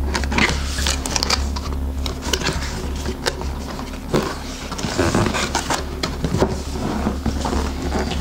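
Hands breaking the seal sticker on a cardboard power-supply box and handling the box: irregular scraping, rustling and small knocks of cardboard over a steady low hum.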